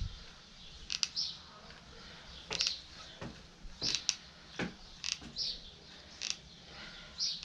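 Hot glue gun being worked: irregular sharp clicks and short high creaks from its trigger as glue is fed under carpet felt.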